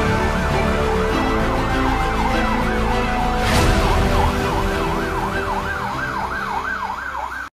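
An emergency vehicle's siren on a fast yelp, rising and falling about three times a second and growing more distinct toward the end. A steady low rumble runs under it.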